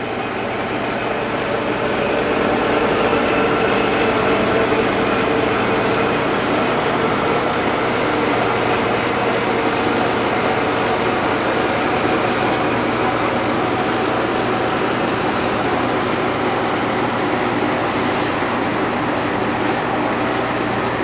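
Engine of a cruise ship under way, heard on board: a steady drone with a constant low hum under an even hiss, swelling slightly over the first couple of seconds and then holding level.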